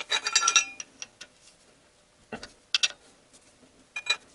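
A steel wrench clinking on the metal of the CVT transmission pan's drain plug as it is tightened. A cluster of ringing metallic clinks comes first, then three short separate ticks.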